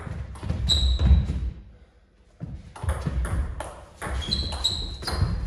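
Table tennis ball being struck by bats and bouncing on the table in a rally: sharp clicks and pings, a few at first, a brief pause about two seconds in, then a quicker run of hits and bounces.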